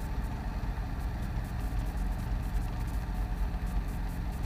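Robinson R22 helicopter's piston engine and two-blade main rotor running steadily, heard from inside the small cabin while the helicopter hover-taxis.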